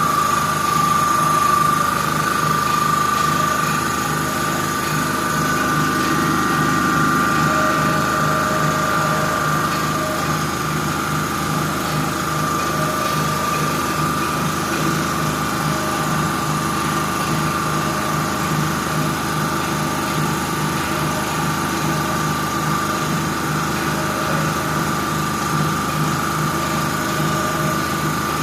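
A machine running steadily: a constant whine over a low hum that pulses quickly and evenly, without let-up.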